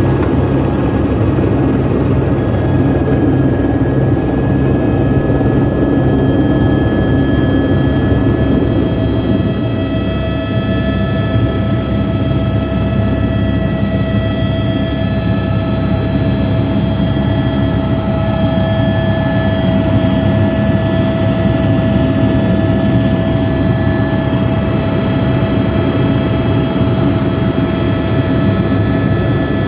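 Helicopter in flight heard from inside the cabin: a loud, steady drone of engine and rotor, with several steady whining tones over a dense low rumble.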